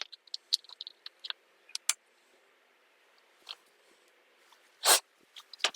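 Light clicks and taps of small metal carburettor parts and tools being handled on a workbench: a quick scatter of them in the first two seconds, then one louder knock about five seconds in.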